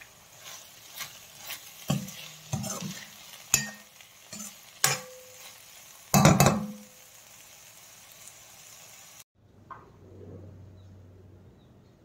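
Brinjal stir-fry sizzling in a stainless steel pan while a spoon stirs it, with a series of clinks and scrapes against the pan; the loudest scrape comes about six seconds in. The sound cuts off suddenly a little after nine seconds, leaving only a faint low hum.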